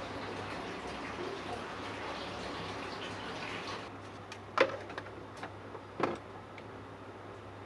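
Steady hiss of running water for about four seconds, then it stops, followed by two sharp knocks and a few lighter ticks.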